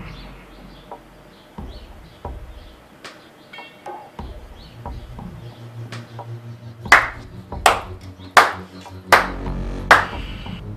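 A low, faint steady hum, then from about seven seconds in a run of slow, sharp hits, roughly one every three-quarters of a second, each ringing briefly.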